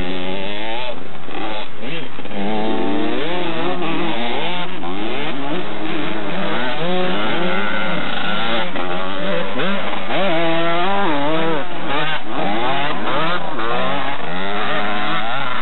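Two-stroke 125 cc motocross bikes, among them a Kawasaki KX125, revving hard as they ride the track. Several engine notes overlap, each rising and falling as the riders open and close the throttle, with one bike passing close by near the end.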